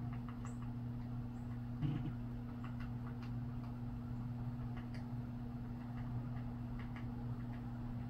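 Downy woodpecker pecking at a block feeder: light, irregular taps of its bill, with one louder soft thump about two seconds in, over a steady low hum.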